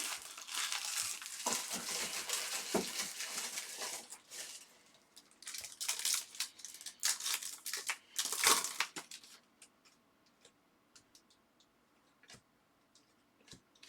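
A trading-card pack's wrapper being torn and crinkled open, then cards handled and flipped through by hand: dense crinkling for the first few seconds, then scattered light clicks of card on card with one louder rustle about eight seconds in, dying down to faint ticks.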